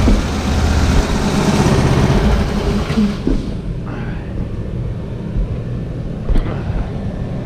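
Old half-inch Mac pneumatic impact gun rattling with a loud hiss of air for about the first three seconds, then stopping. Under it, the air compressor runs with a steady low rumble, and there is a single sharp click near the end.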